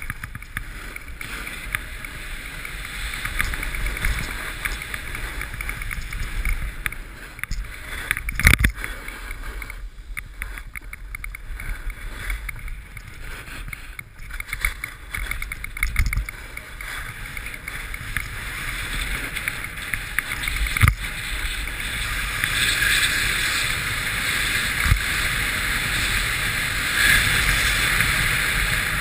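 Snowboard sliding and carving down groomed snow: a steady scraping hiss of the board on the snow that grows louder near the end, with a few sharp knocks, the loudest about eight seconds in.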